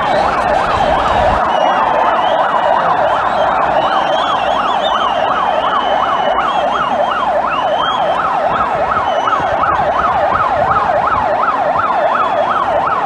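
Electronic siren yelping rapidly up and down in pitch, about three sweeps a second, with fainter wavering whistle-like tones above it.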